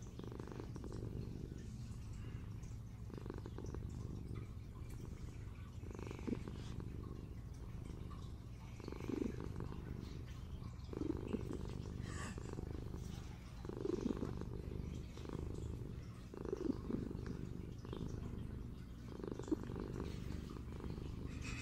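A kitten purring steadily while being stroked, the purr swelling and easing with each breath about every two to three seconds. It is the relaxed purr of a cat drifting off to sleep.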